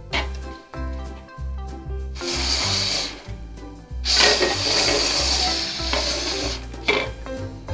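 Background music with a steady bass line, and plastic cups sliding and scraping across a tabletop as they are shuffled: a short scrape about two seconds in, then a longer one from about four seconds in lasting a couple of seconds.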